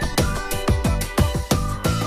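Electronic background music with a fast, steady beat and held synth notes.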